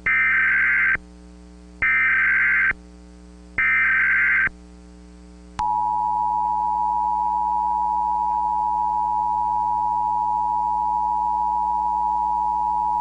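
Emergency Alert System tones: three screeching SAME data-header bursts of about a second each, then the steady two-tone EAS attention signal starting about five and a half seconds in. A low steady hum sits underneath.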